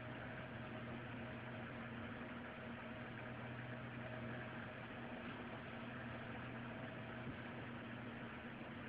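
Faint, steady low hum with an even hiss over it, with no separate knocks or voices.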